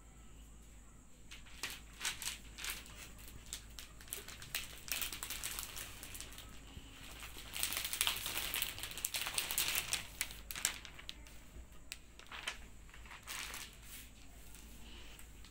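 Clear cellophane and paper wrapping of a flower bouquet crinkling in irregular rustles as cats paw and nose at it. It starts a couple of seconds in and is busiest around the middle.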